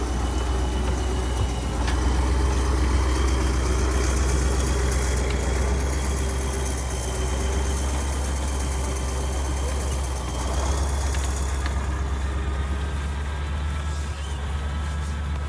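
An MT-LB tracked armoured carrier's V8 diesel engine running with a steady, deep rumble. A steady high whine sits over it and fades out about two-thirds of the way through.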